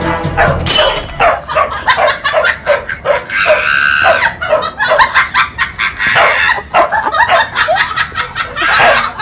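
A dog barking in a quick run of short, repeated barks, about three a second.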